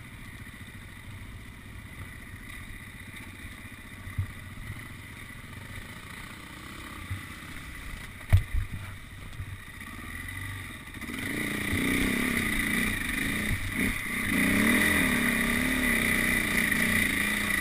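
Enduro motorcycle engine running low for about ten seconds, with a few sharp knocks, the loudest about eight seconds in. It then revs louder, its pitch rising and falling again and again as the throttle is worked.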